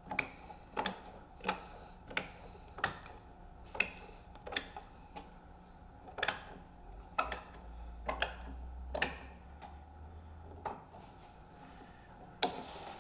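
Large scissors snipping through the excess of a window screen's mesh along the frame, a crisp snip about every two-thirds of a second, with one louder, longer cut near the end.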